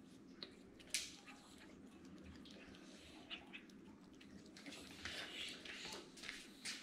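A cat eating off the floor: faint, irregular wet chewing and mouth smacks, with a sharper click about a second in.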